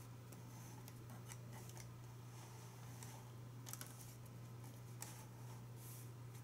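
Quiet handling noise as a collectible action figure is turned by hand: scattered small clicks and ticks, the most distinct a little under four seconds in and at about five seconds, over a steady low hum.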